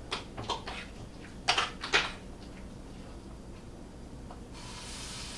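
A metal spoon clinking and scraping against a glass mixing bowl as thick potato batter is stirred, with two sharper clinks about a second and a half and two seconds in. Near the end a steady sizzle starts as batter goes into hot oil in the frying pan.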